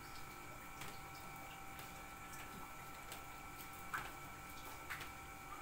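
Quiet room tone with a faint steady high-pitched electrical whine and a few soft, scattered ticks, the loudest about four seconds in.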